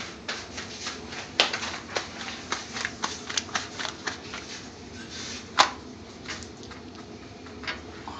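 Irregular light clicks, taps and knocks of handling in a kitchen. The sharpest knock comes about five and a half seconds in, and the sounds thin out after that.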